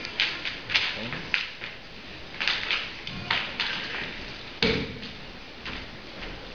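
Scattered taps and knocks of footsteps and gear being handled on a wooden floor, with one heavier thud about halfway through.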